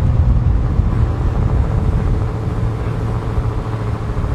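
2022 Dodge Challenger SRT Hellcat's supercharged 6.2-litre Hemi V8 running at a steady idle.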